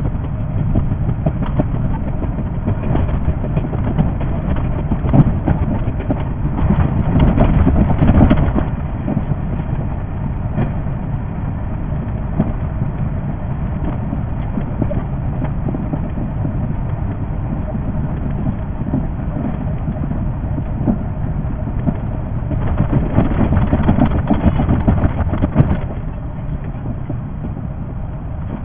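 Running noise of a 381-series electric express train, sped up sixfold: a steady rumble with a dense, rapid clatter of wheels over the rails. It grows louder twice, for a few seconds each.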